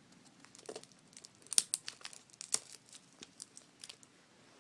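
Scattered sharp clicks and crinkles of adhesive tape and plastic laptop-screen parts being handled, loudest in two snaps around a second and a half and two and a half seconds in.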